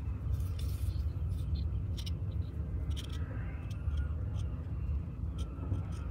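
Steady low background rumble, with a few faint light clicks.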